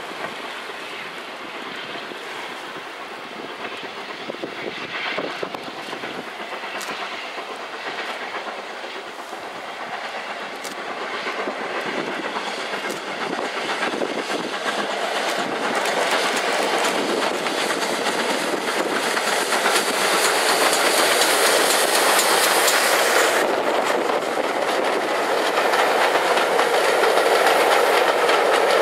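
Steam-hauled passenger train approaching and passing close by, growing steadily louder as it nears; by the end the coaches' wheels are running past on the rails.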